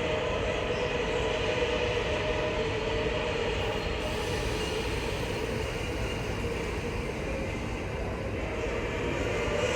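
Train running in the station: steady rolling noise with a held tone over it, easing a little and then building again near the end.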